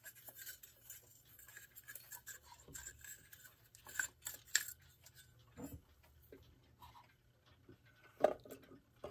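Clock movement being eased out through the front of its case: light rubbing and scraping with small clicks and clinks, and a few sharper clicks about four seconds in and again near the end.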